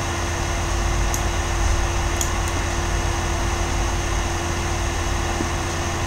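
Steady hum of running air-handling unit fans, with a constant mid-pitched tone and a low rumble underneath.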